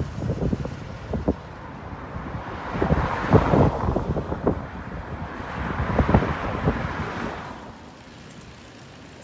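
Gusty wind buffeting a phone's microphone, with a low rumble and irregular thumps. It swells twice and dies down to a steadier hiss near the end.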